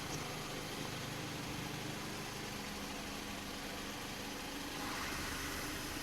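A car engine idling steadily, a low even hum with no changes.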